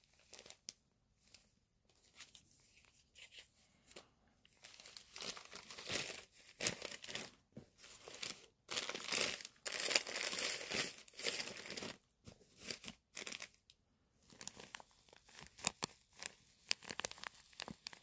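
Tissue paper crinkling and a knit cardigan rustling as it is unfolded and handled by hand, in irregular bursts with sharp crackles, loudest about five to seven and nine to twelve seconds in.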